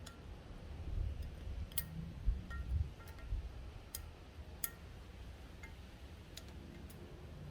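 Irregular light metal clinks and taps, several with a short ringing tone, over low handling rumble: the roller cage of a rusted, seized steering-neck bearing being worked off a motorcycle's steering shaft.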